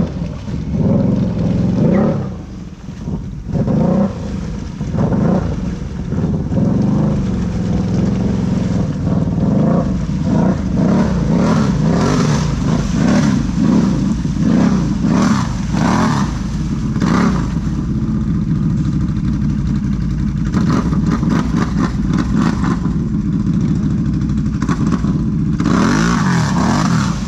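Off-road vehicle engine revving up and down over and over as it is driven, with scattered knocks and rattles.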